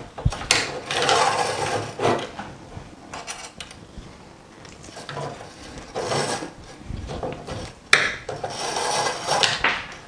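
A braided USB cable being pushed and pulled through a hole in a sheet-metal box, making stretches of rubbing and scraping with a few sharp clicks.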